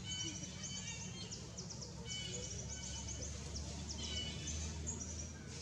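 Outdoor tree-canopy ambience: small birds chirping in quick repeated high notes, with a few short whistled notes, over a steady low rumble.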